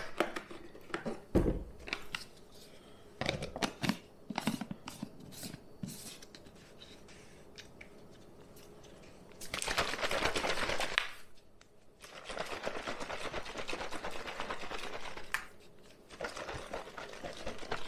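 Plastic shaker cup of protein powder and almond milk being shaken hard to mix, a dense rapid shaking noise in three bouts starting about halfway through, the middle one the longest. Before it, a few knocks and clicks as the carton is set down and the lid is fitted.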